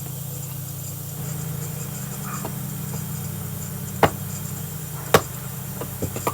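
Two sharp strikes about a second apart, with lighter knocks after them: a 3-pound Connecticut-pattern axe splitting kindling. A steady low hum runs underneath.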